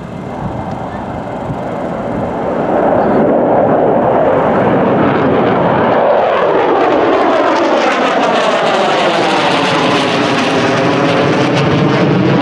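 B-2A Spirit stealth bomber's four General Electric F118 turbofan engines in a flyby, the jet rush building over the first few seconds and then holding loud as the aircraft passes overhead, with a sweeping, phasing ripple in the tone.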